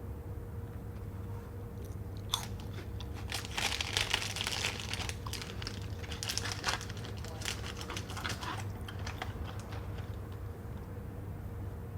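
A crunchy snack being bitten and chewed: a dense run of crunches that starts about two seconds in and dies away after about seven seconds, over a steady low hum.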